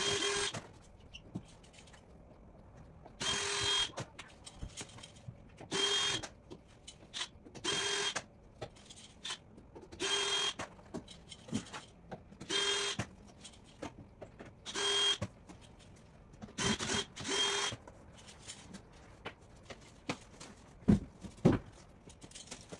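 Cordless drill-driver backing screws out of a wooden shipping crate, whining in about nine short bursts with pauses between them. Two sharp knocks near the end.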